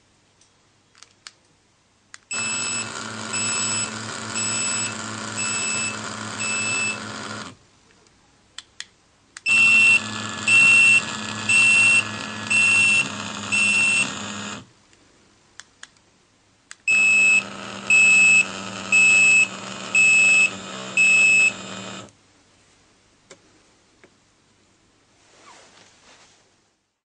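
Wireless remote-control receivers vibrating and beeping, three rounds of about five seconds each. In each round a steady vibration-motor buzz runs under five high beeps about a second apart, and the second round is the loudest. Faint clicks come between the rounds.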